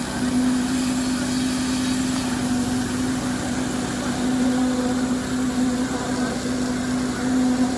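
An engine running steadily at constant speed, with a strong, even hum.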